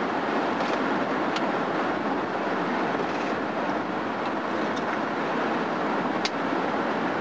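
Steady road and tyre noise of a vehicle cruising on the interstate, heard from inside the cabin, with a couple of faint clicks.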